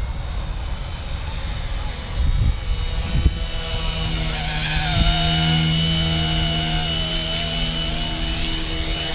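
Small electric RC helicopter (Blade 130 S mechanics in a LEGO Technic frame) whining with its rotors turning. The whine grows louder from about four seconds in as it comes in close to hover and land, and dips slightly in pitch near the end. Underneath there is a low rumble with a couple of knocks early on.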